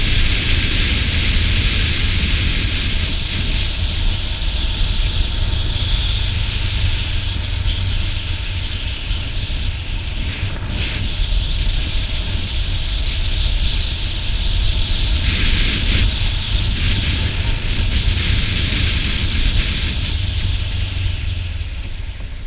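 Motorcycle under way at road speed: heavy wind rush over the camera's microphone with the engine and tyre rumble beneath, steady throughout and easing off near the end.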